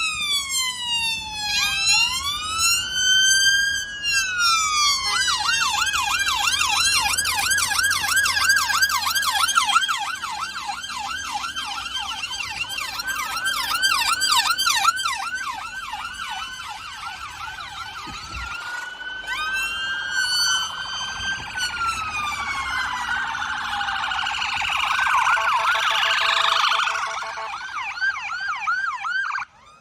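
Electronic emergency-vehicle sirens sounding, with slow rising and falling wails that switch to a fast yelp. After a brief break about two-thirds through, another wail and yelp follow.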